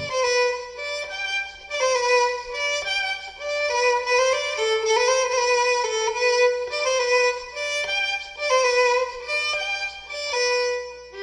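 Background music: a solo violin playing a slow, lyrical melody of held notes with vibrato.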